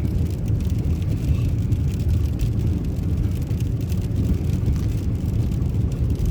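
Car cabin noise while driving on a snow-covered road: a steady low rumble of engine and tyres, with faint scattered ticks.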